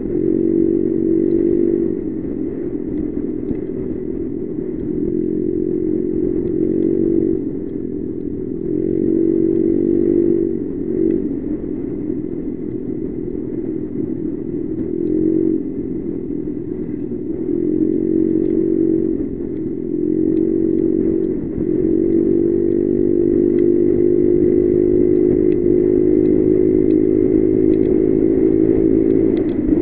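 Motorcycle engine running at road speed, heard from the bike itself, its pitch dipping and picking up again several times as the throttle is eased and reopened, then holding steady through the last several seconds.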